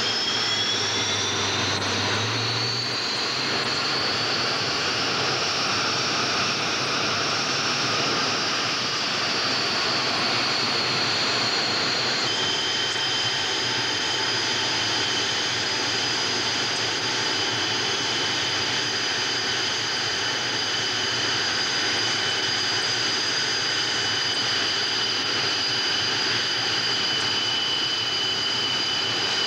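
MiG-21 jet engine running on the ground with a shrill turbine whine that climbs in pitch over the first few seconds, then holds steady. The whine's pitch shifts abruptly about twelve seconds in.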